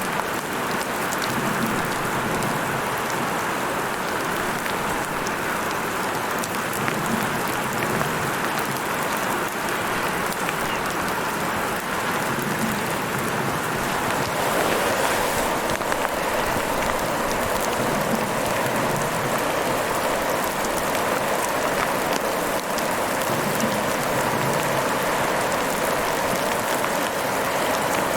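Heavy rain falling steadily, a dense, even hiss of countless drops; it grows slightly fuller and louder about halfway through.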